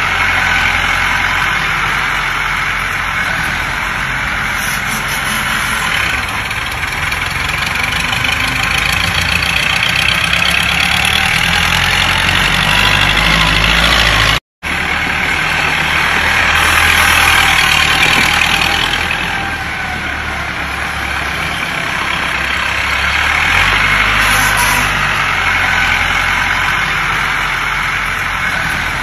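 Shibaura farm tractor's diesel engine running as the tractor drives around, its level swelling and easing with the revs. It cuts out completely for a moment about halfway through.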